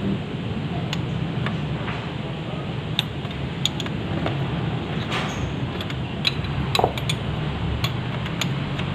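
Scattered light metallic clinks of a combination wrench on the oil drain plug of a Yamaha Aerox scooter's engine as the plug is worked loose, over steady background noise.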